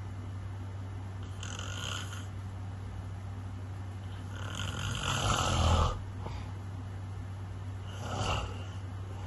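Snoring: three snoring breaths a few seconds apart, the one about five seconds in the loudest and deepest, over a steady low hum.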